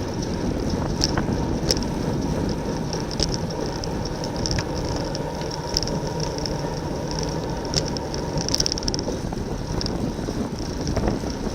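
Wind rushing over the microphone of a camera on a road bike riding in a race pack. Under it runs a steady high whir that flares up briefly again and again, with a few scattered ticks.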